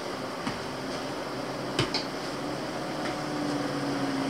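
A steady hiss of room noise with a few light clicks: one about half a second in and a pair near two seconds in. A faint low hum comes in during the second half.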